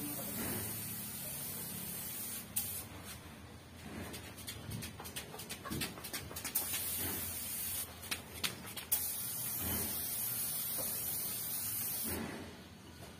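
Gravity-feed paint spray gun hissing as it sprays paint onto a car's side panels. It runs for the first couple of seconds, pauses, then sprays again from about six and a half seconds in until near the end, with a short break around eight seconds. A few sharp clicks fall in the pauses, over a steady low hum.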